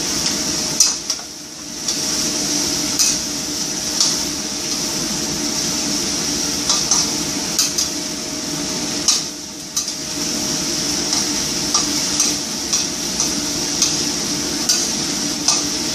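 Pumpkin and mushrooms stir-frying in oil in a pan, with a steady sizzle. A spatula clinks and scrapes against the pan about once a second.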